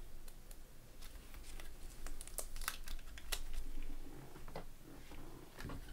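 Trading cards and a plastic wrapper handled in gloved hands: light crinkling and a scatter of small clicks and taps, busiest around the middle.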